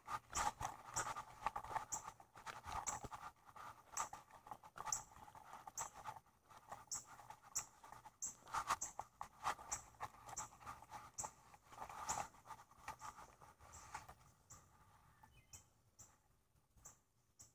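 Footsteps through grass and garden soil at a walking pace of about two steps a second, with rustling and knocks from the handheld camera; the rustling drops away about fourteen seconds in, leaving faint ticking steps.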